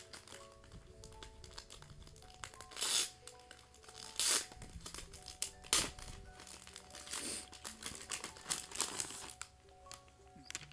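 Clear plastic wrapper crinkling and tearing as it is pulled off a spiral-bound desk calendar, in several loud bursts, with background music underneath.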